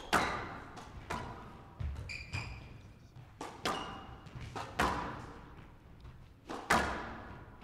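Squash rally: the ball is struck and cracks off the court walls every second or two, each hit echoing through the hall, with a few short squeaks in between.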